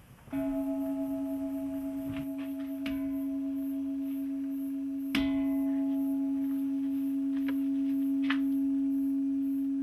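Large hanging bronze temple bell struck three times with a small hand-held mallet, about two and a half seconds apart. Its tone rings on steadily between strikes with a slow waver.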